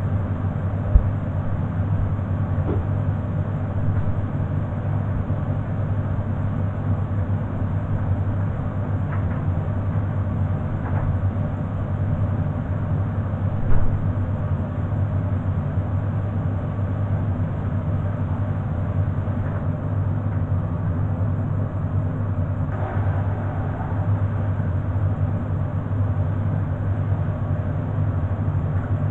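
Beko front-loading washing machine spinning its drum at speed near the end of its cycle: a steady low hum and rumble, with a short knock about a second in and another about halfway through.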